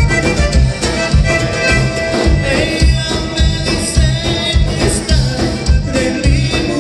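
Live conjunto band playing: accordion over acoustic guitar, bass and drum kit with a steady beat.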